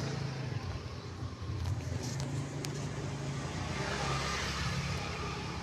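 Puppy snoring: a low, drawn-out rumble that breaks off for about a second and then starts again.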